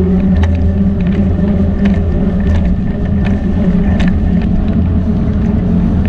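A steady motor-like drone with a low hum, with scattered light clicks and knocks over it.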